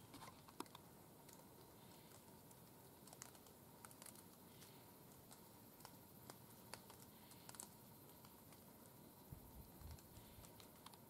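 Near silence: faint outdoor hiss with scattered light ticks.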